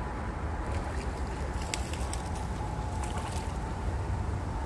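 Steady wind rumble on the microphone with running river water, and a few faint clicks about halfway through as a bass is reeled in on a spinning rod and swung out of the water.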